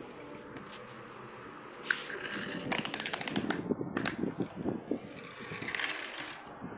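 Handling noises from a toy and its packaging: a burst of rapid, dense clicking and rattling about three seconds in, a few sharp clicks around it, and a short hiss near the end.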